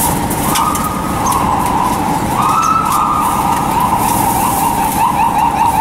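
Emergency vehicle siren over street traffic: a held tone that steps up in pitch twice, then switches to a fast yelp of short rising sweeps near the end.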